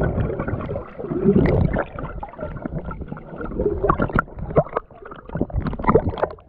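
Muffled bubbling and gurgling of seawater picked up by a camera held underwater, with many scattered clicks and knocks as the water moves against it. Near the end the camera comes up to the surface.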